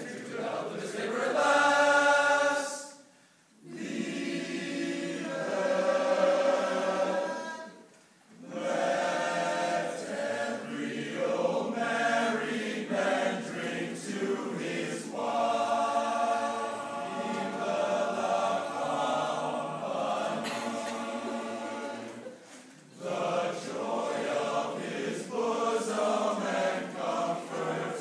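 Men's choir singing a cappella: full sustained chords in phrases, broken by short pauses about three, eight and twenty-three seconds in.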